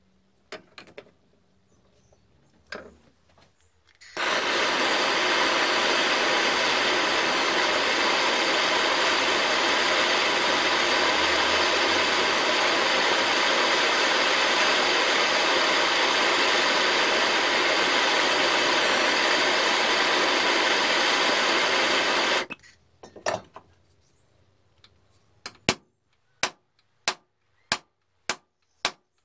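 Handheld gas blowtorch burning with a steady hiss for about eighteen seconds as it heats the small vice's pinned joint, then shutting off. Near the end a hammer taps a steel pin punch about twice a second, driving out the pin.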